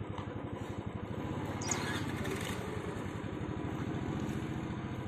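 A small engine running steadily with a rapid, even beat, with a brief high chirp about a second and a half in.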